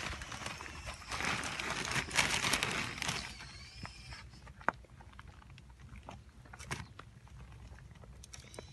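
Crunching and scraping of hands and feet on stony soil for about three seconds, then scattered light clicks, with one sharper click about halfway through as a dripper emitter is pressed into a hole in a plastic drip-irrigation pipe.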